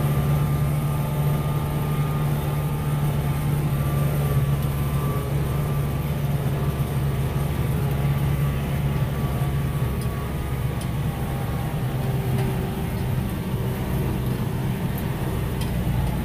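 Kubota M6040 tractor's diesel engine running steadily while pulling a hay rake, a constant drone with a faint steady whine above it.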